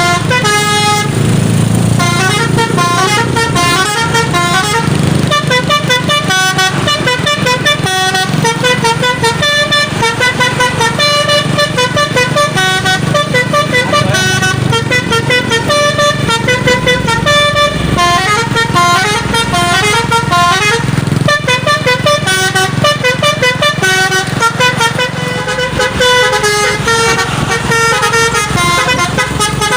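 A truck's basuri telolet horn, a set of musical air horns, playing a quick tune of short stepped notes. A steady low hum runs underneath.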